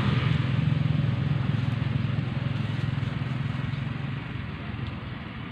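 A motor vehicle's engine running with a low, pulsing hum that fades steadily as it moves away.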